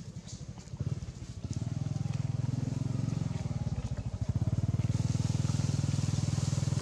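Small engine running with a fast, even pulse. It grows louder about a second and a half in and again past the middle.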